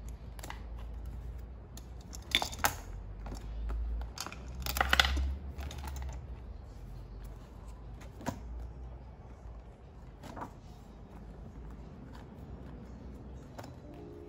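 Paper pages and plastic sleeves being handled and turned in a six-ring binder: two sharp clicks about two seconds in, a stretch of rustling around five seconds, then a few single light clicks.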